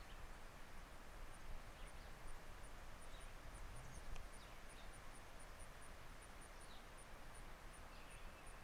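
Quiet outdoor ambience on a moving trike: wind rumble on the microphone, a few faint short bird chirps, and a faint high ticking about three to four times a second.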